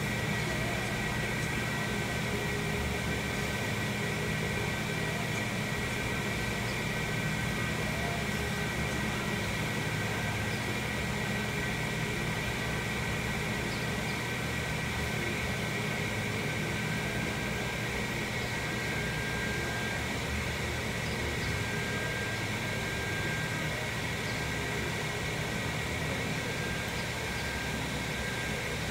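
Steady mechanical hum of a large indoor arena building, with a constant high whine over a low drone and no change throughout.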